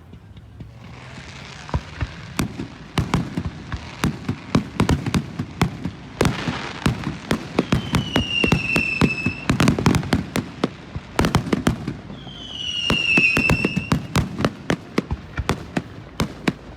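Fireworks going off in rapid succession: many sharp bangs and crackling pops, with two whistling fireworks, each a high whistle falling slightly in pitch, about halfway through and again a few seconds later.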